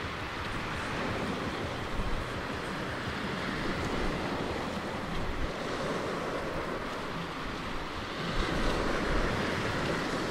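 Sea waves breaking and washing on a shingle beach, a steady surf hiss that swells louder about eight seconds in, with wind rumbling on the microphone.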